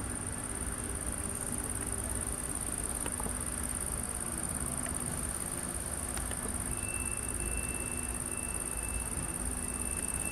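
Crickets chirping in a steady high-pitched chorus over a low, even rumble. About two-thirds of the way through, a thin steady high tone joins in.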